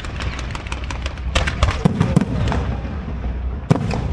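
Fireworks going off: a rapid series of bangs and crackles, with a dense cluster of loud bangs about one and a half to two seconds in and another sharp bang near the end.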